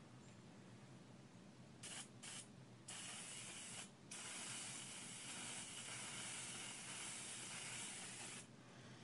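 Propellant-bottle paint sprayer hissing as it sprays DuraCoat firearm finish. There are two short bursts about two seconds in, then a long steady spray from about three seconds to near the end, broken by a brief pause around four seconds.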